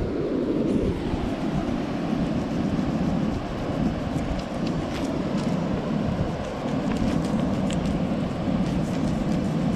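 Steady low rumble of seaside wind and surf noise, with a few faint scratchy ticks in the second half as a serrated dive knife cuts at the tail of a horse-eye jack on the stones.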